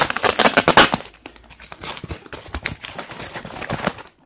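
Packaging being handled and pulled open: a dense crinkling and crackling for about the first second, then lighter, scattered crackles.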